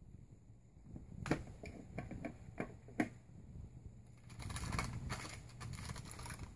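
A calico cat pawing and clawing at a fusuma sliding closet door and its wooden frame: a run of sharp taps and knocks, then about two seconds of rapid scratching and rattling near the end.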